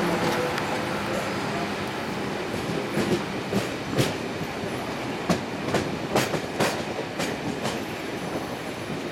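Railway carriage rolling slowly, its steel wheels clicking and knocking over rail joints and pointwork, a dozen or so sharp irregular clicks from about three seconds in over a steady rolling rumble.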